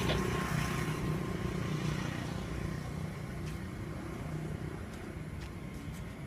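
A motor vehicle's engine running steadily, slowly getting a little quieter.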